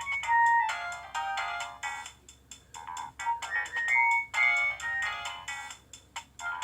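Nokia 2310 mobile phone playing a ringtone: a quick electronic melody of short notes in phrases with brief pauses, thin-sounding with no low notes.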